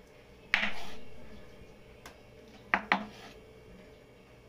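Kitchen knife cutting through a hotdog and knocking down onto a wooden cutting board: one sharp knock about half a second in that fades over about a second, a faint tick near two seconds, then two quick knocks just before the three-second mark.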